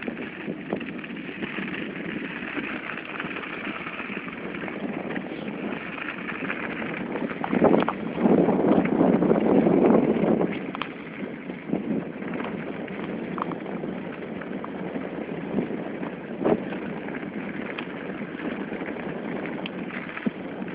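Bicycle rolling over packed snow: tyres crunching and rattling steadily, with scattered small clicks and a louder, rougher stretch about eight seconds in that lasts a couple of seconds.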